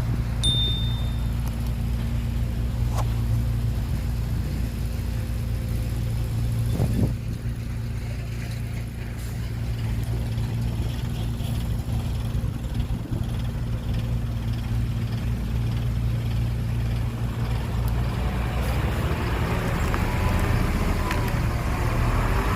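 Heavy diesel engine of earthmoving machinery running steadily at low speed, a deep even hum, with a short high beep near the start and a couple of faint knocks.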